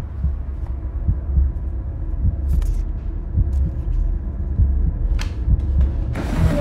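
Horror film soundtrack: a low, steady drone with a short low pulse repeating a couple of times a second. About six seconds in comes a brief hissing swell.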